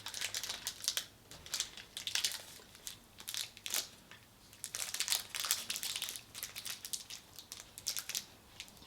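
A chocolate bar wrapper crinkling and tearing as it is opened by hand, in an irregular string of crackles.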